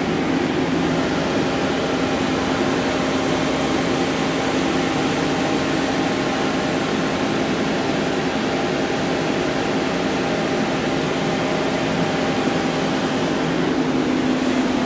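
Steady hum of a powered-up Amera Seiki TC4L CNC turning center, an even mechanical drone with a constant low tone.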